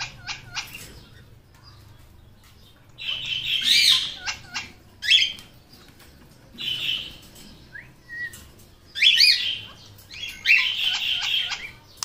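Ring-necked parakeet giving harsh squawking calls in several short bouts, with a few short clicks near the start.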